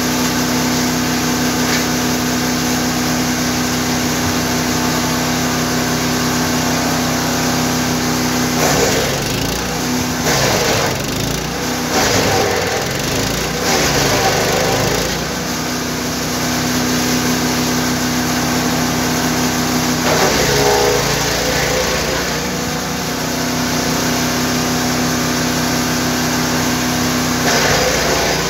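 GTM GTS 900 wood chipper's 9 hp engine running steadily, with branches being fed in and shredded in bouts: a long one about a third of the way in, a shorter one about two-thirds in and a brief one near the end. The engine note wavers under the load of chipping.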